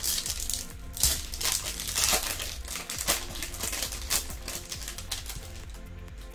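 Foil wrapper of a Topps Chrome trading-card pack crinkling as it is torn open and the cards are pulled out. The crackly rustling is heaviest from about a second in until near the end.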